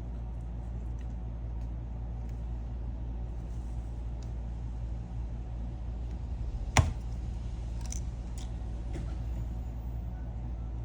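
Small clicks from a pry tool working the glued display of an iPhone 12 loose, with one sharp click about seven seconds in, over a steady low hum.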